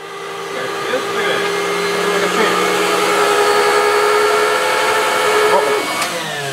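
Electric motor of a bench-top valve refacing grinder running with a steady whine and hiss. About six seconds in there is a click and the whine falls in pitch as the machine spins down.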